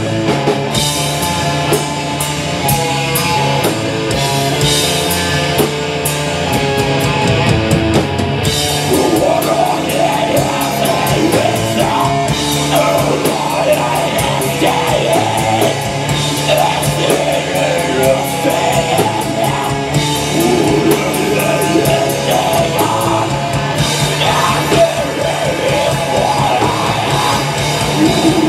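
Live heavy metal band playing loud: electric guitar, fast drumming with rapid cymbal strikes, and a vocalist singing into a microphone.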